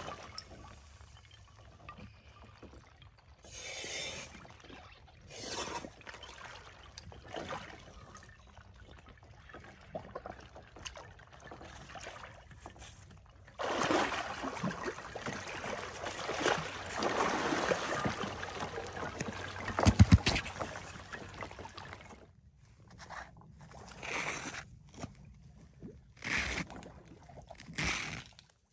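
Water splashing and sloshing among broken ice in a hole cut through pond ice, as a scuba diver goes under. Midway through comes about eight seconds of dense churning and bubbling where the diver has submerged, with a cluster of sharp knocks near its end that are the loudest sounds.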